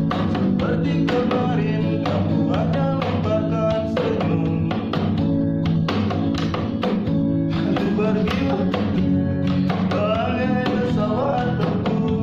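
Guitar strummed in a steady rhythm, chords ringing continuously.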